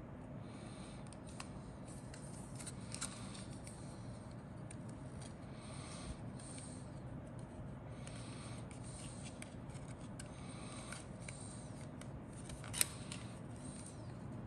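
Grey plastic model-kit parts on their sprues being handled, rubbing, scraping and clicking against each other and against the fingers, with one sharp click near the end.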